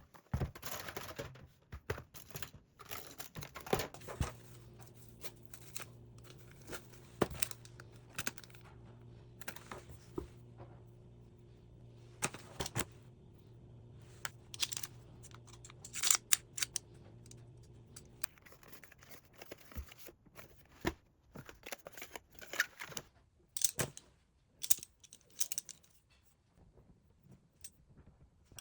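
Small household items being handled, with irregular clicks, light knocks and crinkling rustles. A steady low hum runs from about four seconds in until about eighteen seconds.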